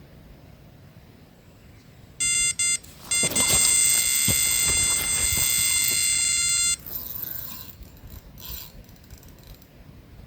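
Electronic carp bite alarm going off: two short beeps, then a continuous high tone for about three and a half seconds that cuts off suddenly. This is a run, a carp taking the bait and pulling line.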